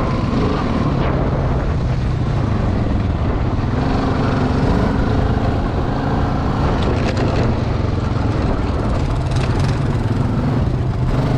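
ATV engine running under load while riding, its pitch rising and falling a little with the throttle, with a few knocks and rattles in the second half.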